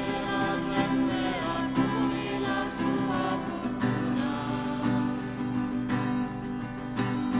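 Hymn music: singing over strummed acoustic guitar.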